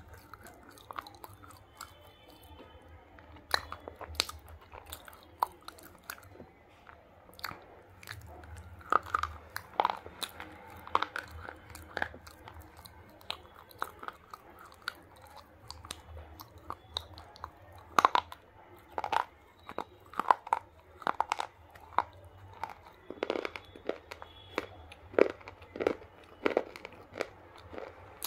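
Slate pencils being bitten and chewed: irregular sharp crunches and grinding chews, louder and more frequent in the second half.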